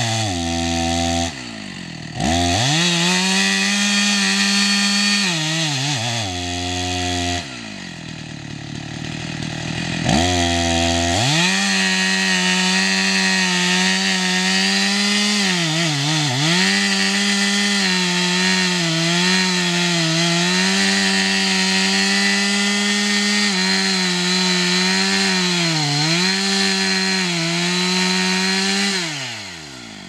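Two-stroke chainsaw revving to full throttle and cutting wood, its pitch sagging briefly under load several times. It drops back to idle twice in the first ten seconds and winds down near the end.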